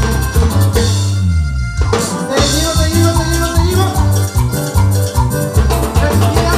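Cumbia band music with a steady bass and drum beat and shaker percussion. The bass and drums drop out for about a second near the start, then the full band comes back in.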